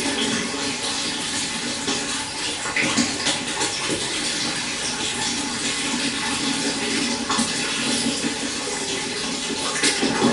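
Clear stream flowing steadily: a continuous rush of water with many small splashes.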